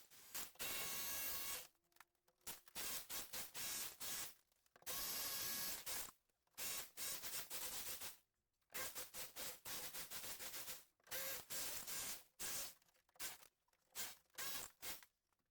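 Chiselling into a masonry wall to uncover a water pipe: stretches of harsh grinding noise, some lasting about a second and others coming as short strokes a few times a second, broken by silent pauses.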